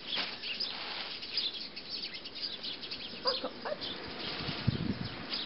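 Birds chirping: many short, high calls scattered throughout, with a brief low rumble near the end.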